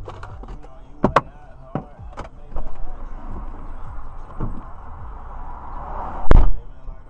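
A car door being unlatched and opened, with several sharp clicks in the first couple of seconds and a hiss of road noise while it stands open. Near the end comes a heavy thump as it is shut.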